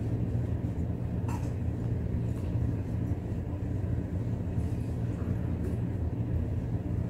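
A steady low hum with several even tones, like an appliance or machine running, with one faint tap about a second in.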